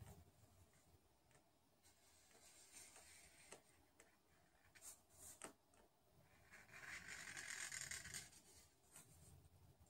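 Faint scratching of a marker pen drawing lines on a large sheet on a wall. There is a short stroke about two to three seconds in, a few light clicks around five seconds, and the longest, loudest stroke about seven to eight seconds in.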